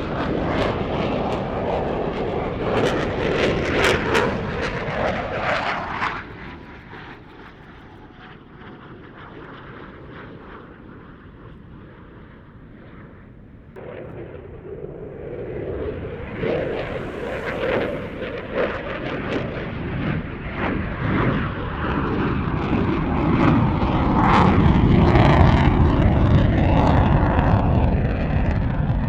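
Military aircraft on an airshow display pass: loud engine roar with crackle, which drops away abruptly about six seconds in and builds back up from about fourteen seconds to its loudest near the end.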